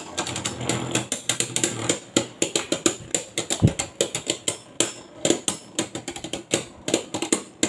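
Two Beyblade spinning tops clashing in a plastic stadium: many sharp, irregular clicks and clacks, several a second, as they knock together while spinning.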